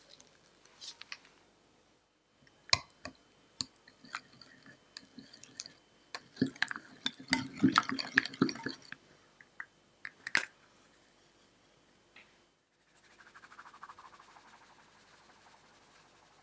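Wire whisk stirring egg yolk batter in a glass bowl, with quick clicks and scrapes of the wires against the glass, busiest around the middle. Near the end comes a soft, steady hiss of cake flour being sifted through a mesh sieve.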